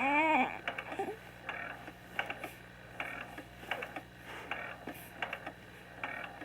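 An infant gives one short coo that rises and falls in pitch right at the start, followed by a string of small, irregular clicks and smacks.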